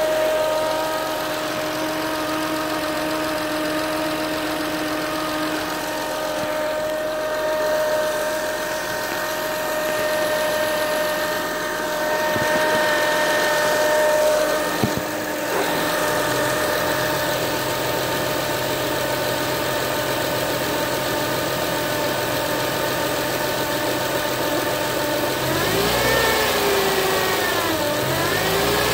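2007 Acura TL Type S V6 engine idling with a steady high-pitched whine over the engine sound. About 26 seconds in, the engine is revved briefly and the whine's pitch rises and falls with the engine speed. There is a single sharp click about halfway through.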